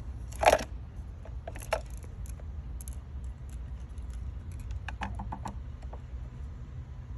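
Scattered light clicks and taps of a test light's probe and hands working over the fuses in a car's under-hood fuse box, with one louder knock about half a second in. A low steady rumble runs underneath.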